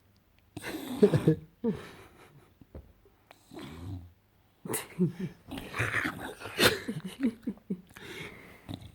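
English bulldog making weird gremlin-like vocal noises: irregular grunts, snorts and growly whines in bursts, with a longer run from about halfway to near the end.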